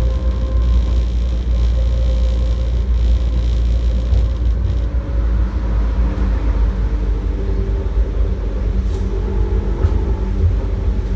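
Taipei Metro Wenhu Line rubber-tyred train running along its guideway, heard from inside the front of the car: a steady low rumble with faint, steady humming tones over it.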